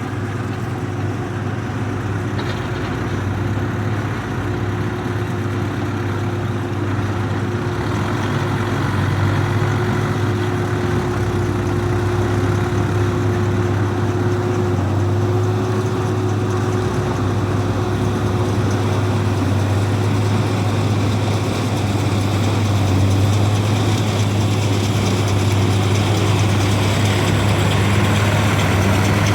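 Heavy diesel engine of farm machinery running steadily at constant speed, a deep drone with a steady hum above it, growing a little louder over the span.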